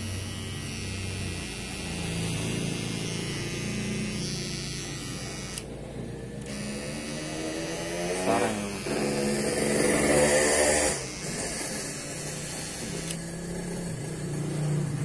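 Kemei KM-1319 cordless baby hair clipper switched on and running with a steady motor buzz. It gets louder and hissier for about two seconds around ten seconds in.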